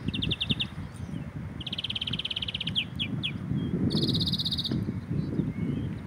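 European greenfinch singing: a string of rapid trills, a short one near the start, a longer one about two seconds in and a higher-pitched one about four seconds in, with a few single chirps between.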